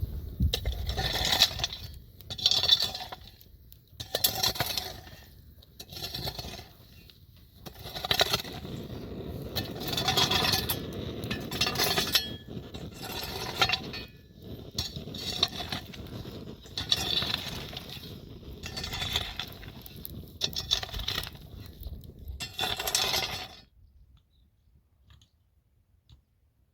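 Hard objects clinking and knocking against each other in a run of irregular strikes, roughly one every second or two, that stops suddenly near the end.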